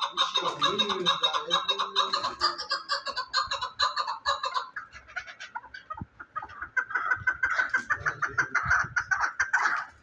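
Chukar partridge calling: rapid runs of repeated chuck notes, a first run of about four and a half seconds, then after a short pause a second run near the end.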